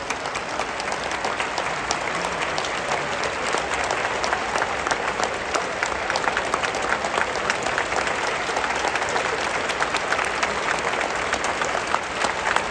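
Large stadium crowd applauding, thousands of hands clapping in a dense steady patter that swells a little in the first couple of seconds.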